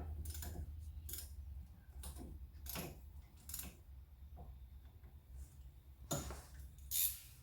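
Scattered sharp metallic clinks and taps of hand tools and loose bolts while the bolts are undone from the back of a car's rear brake backing plate, over a steady low hum.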